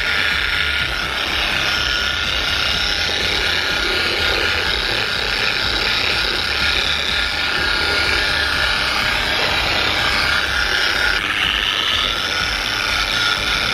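Electric eccentric (random-orbital) polishing machine running steadily with a foam pad on a scooter's painted bodywork, a continuous motor whirr with a faint steady whine.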